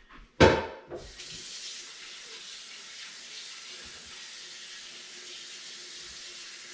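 A sharp knock about half a second in, then a kitchen faucet running steadily into a large stainless steel stockpot in the sink, filling it with cold water.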